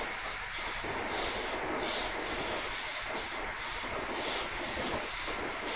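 British Rail Class 317 electric multiple unit running at speed, heard on board: a steady rolling rumble with a high hiss that swells and fades about twice a second.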